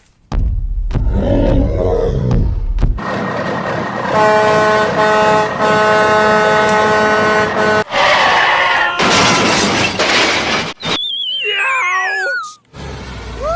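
A string of cartoon vehicle sound effects: a low engine-like rumble, then a long horn-like blare of several held tones, broken twice, for about four seconds, a short burst of noise, and a wobbling whistle that slides down in pitch near the end.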